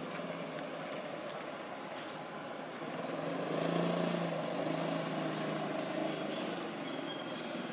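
Steady engine hum from a motor vehicle that swells louder about three seconds in and then eases off, over a steady outdoor noise bed, with a couple of faint high chirps.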